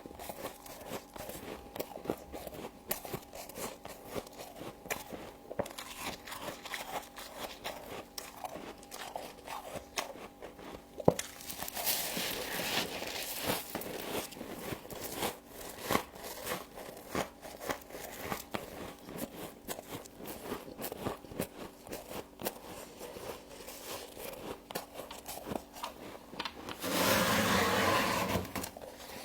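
Frost being bitten and chewed close to the microphone: a string of crisp, irregular crunches. Near the end a louder steady whirring noise comes in for about two seconds.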